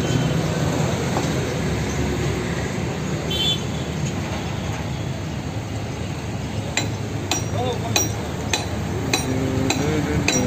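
Steady rumble of engines and traffic at a roadside work site. From about two-thirds of the way in, a regular metallic clinking starts, roughly one sharp strike every half second or so.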